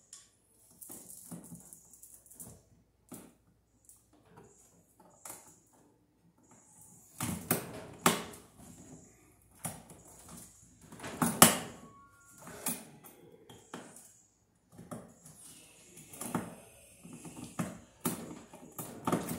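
Irregular clicks, rattles and knocks of armored (MC/BX) cable and wires being handled and worked at a metal junction box, with a few sharper knocks near the middle.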